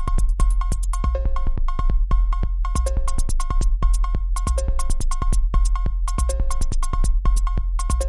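Electronic phone ringtone: a short synth and drum-machine loop over a deep bass, repeating about every 1.7 seconds.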